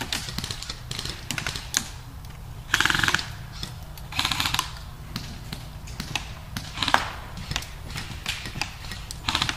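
Airsoft guns firing in short bursts of rapid clicks: the loudest burst about three seconds in, another at about four and a half seconds, a single sharp crack near seven seconds and another burst near the end, over a steady low rumble.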